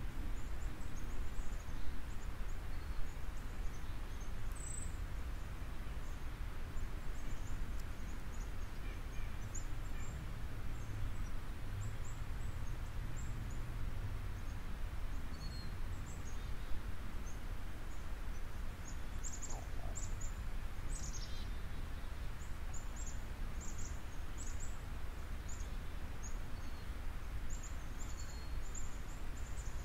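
Steady low background rumble with faint, short high-pitched bird chirps scattered through it, coming more often in the second half.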